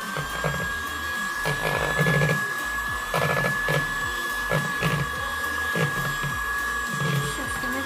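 Electric hand mixer running with a steady high motor whine, beating waffle batter to work out the lumps.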